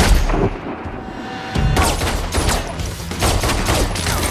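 Action-film gunfight sound: a loud handgun shot ringing out at the start, then from about a second and a half in, a rapid string of gunshots, several a second, over a low rumble.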